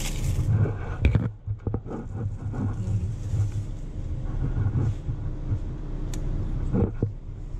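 Low, uneven rumble over a steady electrical hum from the printer, with a few sharp clicks about a second in and again near the end.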